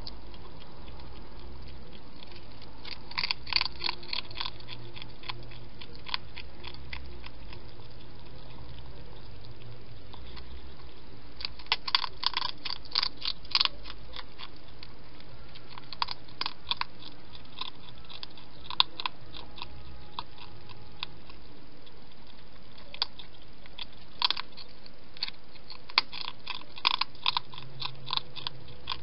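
A hedgehog crunching food from a bowl, chewing in irregular bursts of sharp clicks with pauses between them, over a steady background hiss.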